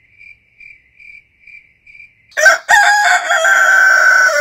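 Cricket chirping in a steady pulse, about two or three chirps a second, then a rooster crowing loudly from a little past halfway, one long crow that runs to the end.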